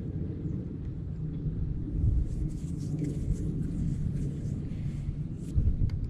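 Wind buffeting the microphone: a low, uneven rumble that gusts louder about two seconds in and again near the end. Faint crackling ticks and rustles run over it from about two seconds in.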